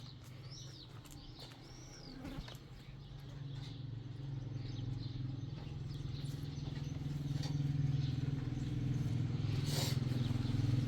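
A few high arching bird chirps, then a motor vehicle's engine running and growing steadily louder as it approaches.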